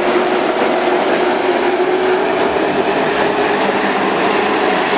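Race cars circling a short oval track, their engines blending into one continuous, steady drone.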